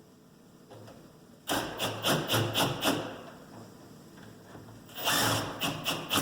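Screws being driven to fasten a Schlage deadbolt into a door, in two short bursts of about a second and a half each, each a quick run of clicks.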